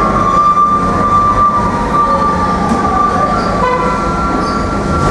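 Loud, steady machinery noise with a steady high whine; a second, slightly higher whine joins a little past halfway.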